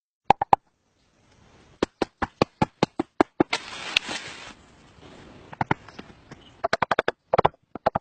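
A quick series of sharp knocks, about three a second, with a short burst of scraping noise in the middle. The knocks stop for about two seconds, then start again in a quick cluster.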